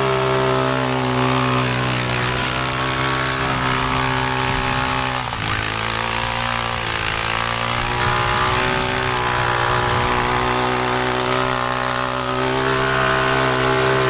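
Four-wheeler (ATV) engine running steadily as it tows a sled through snow. Its pitch drops briefly about five seconds in as it eases off, then climbs back.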